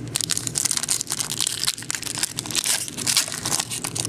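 Football trading card packaging crinkling while cards are handled: a dense, irregular run of crackles and rustles.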